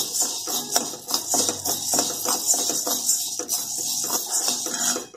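Jowar (sorghum) grains being dry-roasted in an aluminium kadhai and stirred with a metal spatula. The grains rattle and the metal scrapes, making a busy run of small clicks that cuts off suddenly at the end.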